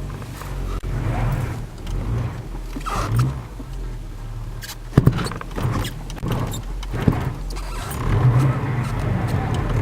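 1994 Audi 80's engine running with a steady low hum, broken by sharp thumps now and then, the loudest about five seconds in and another about two seconds later. The thumping comes from broken engine mounts.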